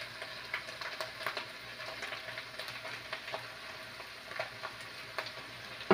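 Chopped pork and onion sizzling in a pan over low heat: a steady light crackle with small pops. A single sharp knock comes right at the end.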